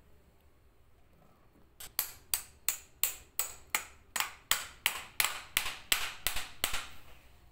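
A metal pipe or rod knocking on the metal housing of a washing-machine motor: about fifteen sharp strikes in a steady run of roughly three a second, each ringing briefly. They start about two seconds in and stop about half a second before the end.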